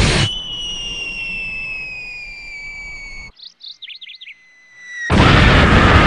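Falling-bomb whistle sound effect: a long whistle slowly dropping in pitch, with a second of birds chirping over it. About five seconds in, a loud explosion blast cuts in and is the loudest sound.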